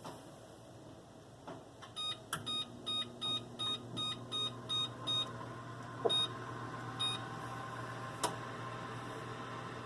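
Whirlpool electric range's oven control panel beeping as its temperature keys are pressed: a quick run of about a dozen short beeps, roughly three a second, then two more single beeps, as the oven temperature is set down. A low steady hum starts alongside, about two seconds in, and keeps going.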